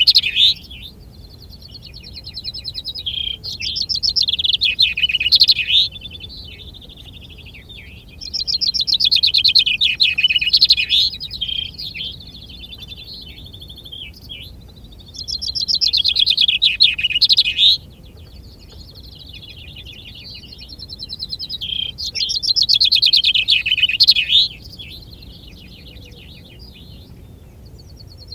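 Contest chaffinch singing its full song over and over: four loud phrases of about two and a half to three seconds each, spaced some six to seven seconds apart. These are the songs tallied in a finch-singing contest. Fainter finch trills carry on between the phrases.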